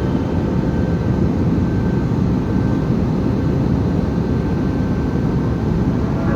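Steady, loud noise of a jet airliner.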